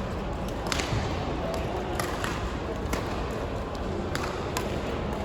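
Badminton rally: sharp racket strikes on the shuttlecock at irregular intervals, about one a second, over a steady background din.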